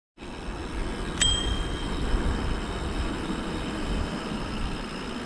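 A bicycle bell rung once about a second in, a bright ding that rings on for about half a second. Under it runs the steady low rumble of wind and tyre noise from the moving bike.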